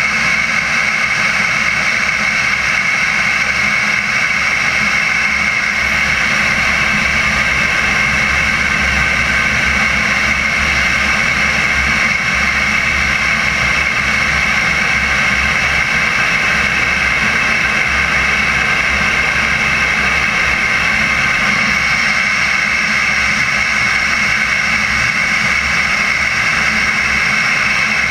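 Turbine engine of a CARF Viper RC model jet running steadily in flight, a high whine over the rush of air past the belly-mounted camera.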